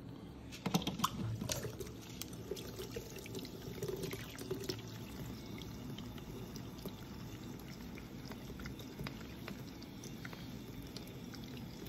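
Small electric pet water fountain running, its jet splashing and trickling back into the bowl in a steady watery patter. A few light knocks sound near the start.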